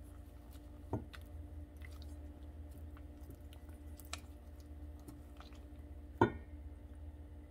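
Faint wet squishing as raw chicken is dipped and turned in egg wash in a stainless steel bowl by a gloved hand. A small knock comes about a second in and a sharper, louder knock about six seconds in, over a steady low hum.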